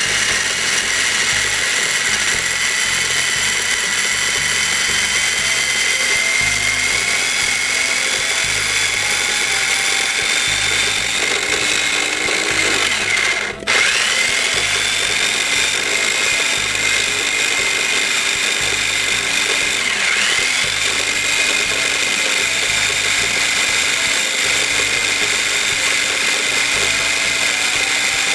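Small electric mini chopper running steadily under hand pressure, its motor whining as the blade grinds vegetables, herbs and oil into a chunky sauce. About halfway through it cuts out for a moment, then starts again and spins back up.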